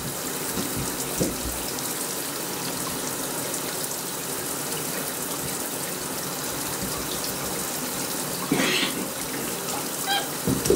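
Shower water running steadily, spraying into a bathtub.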